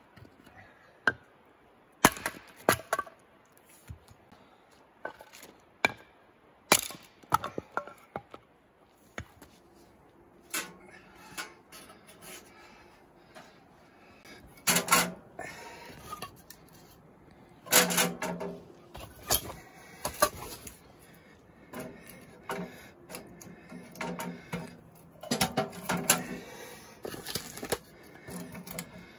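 Irregular sharp knocks and clatter of hard objects being handled, some hits much louder than others.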